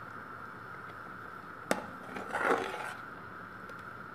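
A metal ladle knocks once against the cooking pot, then scrapes in it for under a second, over a steady background hum.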